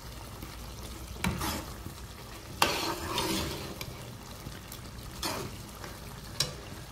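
Metal ladle stirring a simmering gourd curry in a black kadhai, knocking and scraping against the pan four times, over a steady faint sizzle of the cooking.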